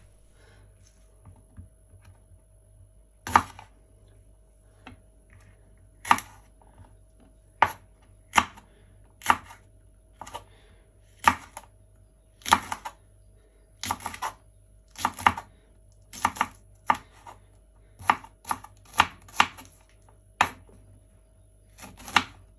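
Chef's knife slicing green chillies on a wooden cutting board: sharp separate knocks of the blade meeting the board, about one a second and coming quicker in the second half.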